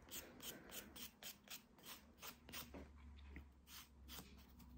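Nail file rasping across a fingernail in short, faint back-and-forth strokes, about three to four a second, roughening the nail surface to prepare it for the base gel.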